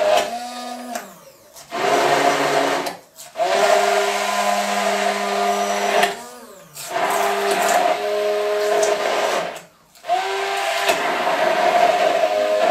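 Electric blender puréeing a thick cashew-nut cream, its motor whining steadily. It is stopped and restarted four times, the pitch sliding down as it winds down and climbing back up as it spins up again.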